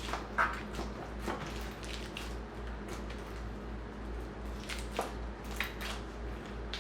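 Sticky slime, freshly mixed with glitter glue, being squeezed and worked by hand: scattered wet squishes and small sharp clicks and pops.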